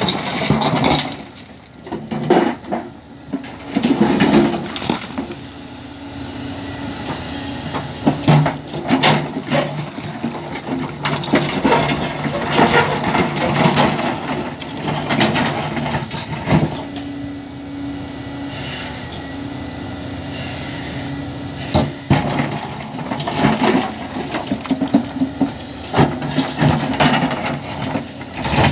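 Hyundai HX480L excavator's diesel engine running under load, with frequent clanks, knocks and cracking of rock as the machine works stone.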